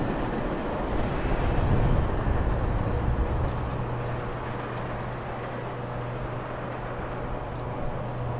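Steady low rumble of a freight train some distance off, with a constant low hum, a little louder about two seconds in.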